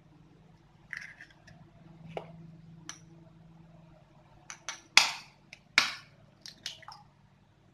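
Eggs being cracked with a steel spoon over a small steel cup: scattered sharp taps and clicks of metal on eggshell, the two loudest a little under a second apart about five seconds in.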